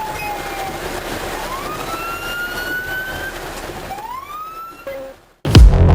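Police siren wailing, its pitch sliding slowly down and then up again over steady road noise. About five seconds in it cuts off abruptly and loud electronic music with a heavy beat starts.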